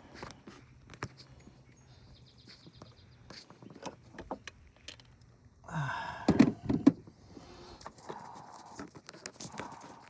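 Hand tools working on the engine's bolts: scattered light clicks and knocks of a wrench and socket, with a louder clatter of knocks about six seconds in.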